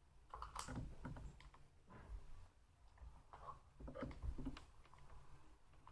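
Faint, scattered clicks and light knocks of a chainsaw's combination key working on the guide-bar nuts as they are tightened.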